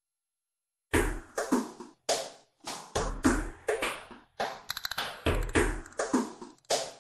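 Opening of an electronic dance remix: after about a second of silence, a run of punchy drum-machine hits with short decays starts. A quick stuttered roll comes in the middle.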